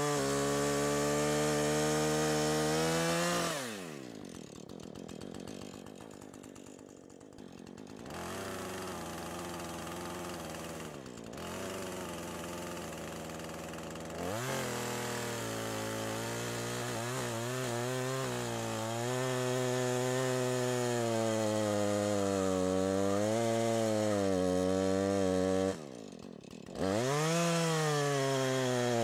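Norwood LM29 band sawmill's petrol engine running at high speed. It drops to a low idle about three and a half seconds in and revs back up in steps. Later the pitch wavers and dips as it works, then it drops briefly and comes straight back up near the end.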